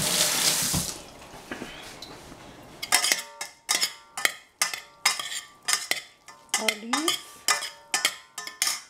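Two metal spoons tossing a shredded salad in a stainless steel saucepan. A brief rustle comes at the start, then from about three seconds in a quick run of clinks, roughly two a second, as the spoons strike the pot with a short metallic ring.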